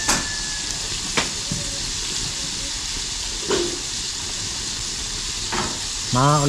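Chicken deep-frying in a wok of hot oil, a steady sizzle with about four sharp pops along the way.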